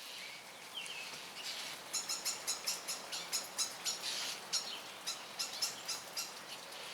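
Small birds chirping: a rapid run of short, high chirps, about three a second, busiest from about two seconds in, with a few short downward-sliding calls.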